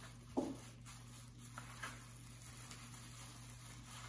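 Quiet handling noise: plastic wrap rustling as balls of dough are moved on a platter, with one dull thump about half a second in and two faint clicks a little later, over a steady low hum.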